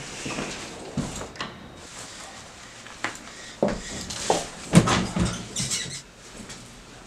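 Clothes rustling and a metal belt buckle clinking as a leather belt is unbuckled, heard as a run of short sharp clicks and knocks; the sharpest comes a little under five seconds in.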